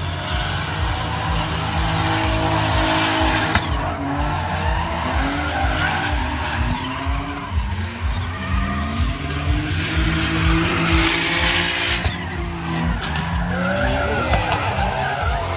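Drift cars sliding sideways, their engines revving up and down over and over while the tyres screech and smoke against the asphalt.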